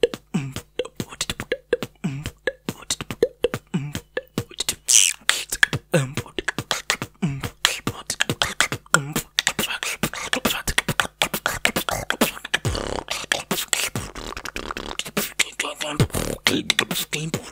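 A fast beatboxing freestyle of rapid mouth clicks and tongue slaps, with a short downward-sliding bass note roughly every second in the first half. The pattern gets busier and denser in the second half.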